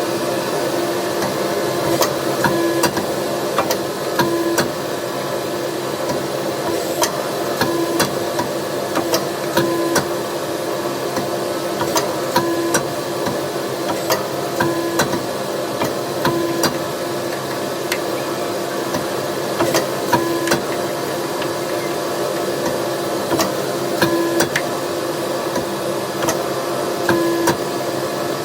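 Hammer blows on hot 5160 steel bar during rough forging, irregularly spaced strikes with short metallic rings, over a steady rushing background noise.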